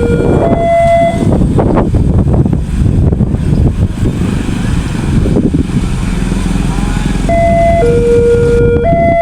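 Railroad level-crossing warning siren alternating between two tones, about a second each; it drops out about a second in and comes back near the end. In between there is a loud low rumble with a few knocks, typical of a train passing over the crossing.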